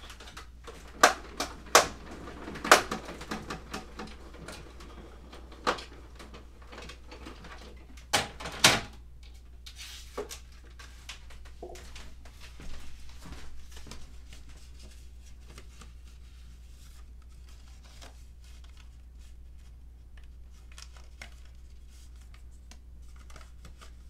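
Sharp knocks and clatters, loudest in the first three seconds and again about eight seconds in, then lighter clicking and rustling, over a steady low hum: a paper layer and thin-cut die being run through a die-cutting machine.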